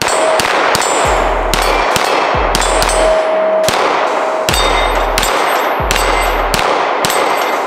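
Arsenal Strike One Speed 9mm striker-fired pistol fired in a rapid string of shots, about two a second, with steel plate targets clanging and ringing on hits.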